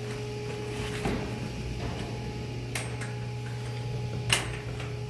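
Steady hum of running engine-room machinery, with a few sharp metallic clicks from a hand tool being handled at the engine's chain case. The loudest click comes near the end.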